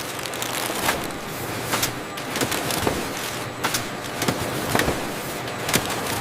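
Irregular sharp cracks and clicks, about one or two a second, over a steady noise.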